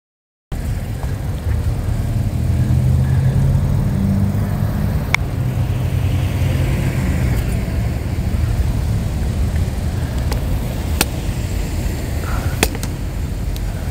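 Low rumble of road traffic, with several sharp pops and cracks from the fire in the front of a burning Ram pickup truck.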